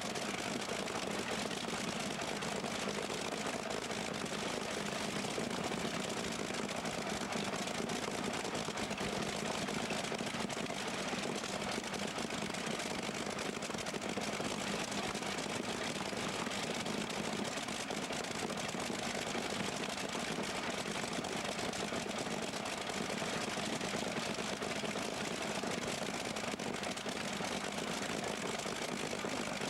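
An engine idling steadily at an even speed, with no revving.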